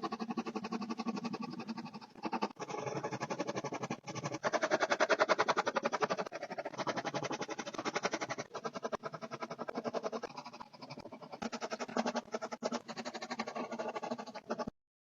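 Graphite pencil scratching on paper in rapid back-and-forth shading strokes, with a few brief pauses. It stops suddenly near the end.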